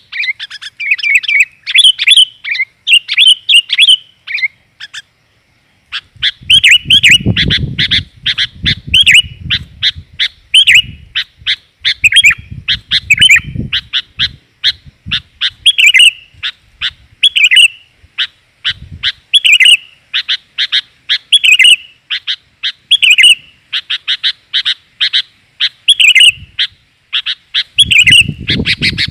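Female sooty-headed bulbul (kutilang) chirping in a long, rapid run of short, bright calls, the kind used as a lure call for male bulbuls. The calls stop briefly about five seconds in, and a low rumble sits under them in places.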